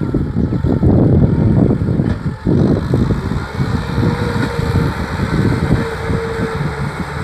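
Kubota tractor's diesel engine running under load while ploughing a rice field, a dense, rough low-pitched running with a steady whine joining in about halfway through.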